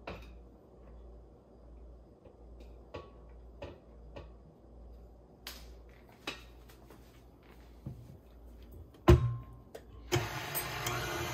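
A few light knocks of a spoon against a bowl as flour is spooned in, then a loud thump about nine seconds in. About a second later a KitchenAid Artisan stand mixer is switched on, its motor running steadily on a slow speed with the flat beater turning through flour.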